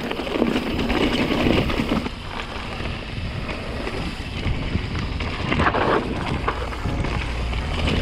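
Mountain bike rolling down a dry, stony trail: tyres running over loose gravel and rock, with a brief clatter about two-thirds of the way through, and wind rushing over the microphone.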